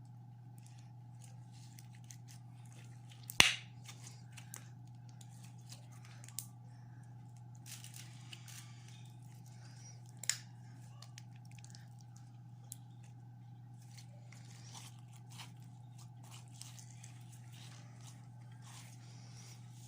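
Slime being squeezed and handled: faint squishing and crackling, with two sharp clicks about three and ten seconds in, over a steady low hum.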